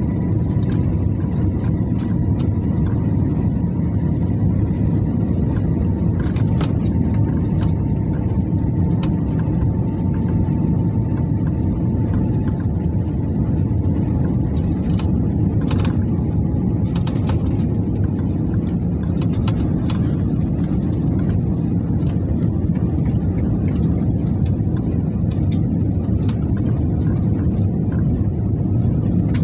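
Steady drone of jet engines and rushing air heard inside an airliner cabin on approach, with flaps extended. A faint whine falls slowly in pitch through the first half.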